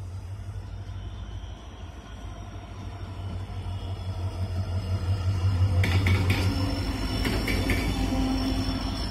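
EMD WDG4 (GT46MAC) diesel locomotive's V16 two-stroke engine rumbling as the locomotive passes close by, getting louder toward the middle and easing near the end. Past the middle come two pairs of clacks from the wheels on the rails.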